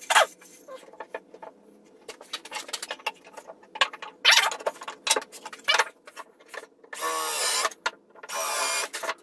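Wooden boards knocking and clattering as a pine step is handled and set in place, then a cordless drill running in two short bursts near the end, drilling into the step.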